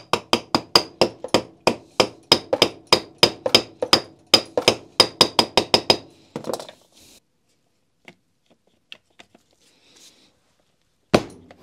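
Rubber mallet rapidly tapping the barrel assembly of a Makita HR5001C rotary hammer to drive it fully home into its aluminium gear housing: about four or five blows a second for some six seconds, each with a brief metallic ring. A few faint ticks follow, then a single heavier knock near the end.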